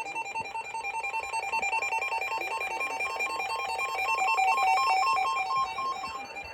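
Emergency Alert System attention signal: a harsh two-tone beep held steadily, stopping shortly before the end.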